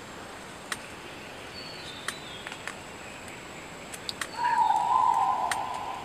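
Crested argus giving one loud, long call note near the end, steady in pitch with a small step up partway, lasting about a second and a half. A few faint clicks come before it.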